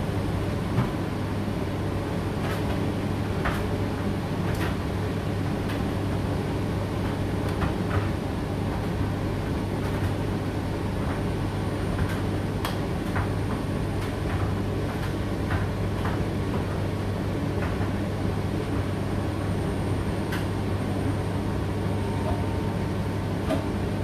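Indesit IDC8T3 condenser tumble dryer running on its high-heat cycle: a constant low hum with occasional faint clicks.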